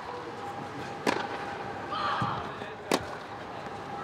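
Tennis ball struck by rackets during a rally, two sharp hits about two seconds apart.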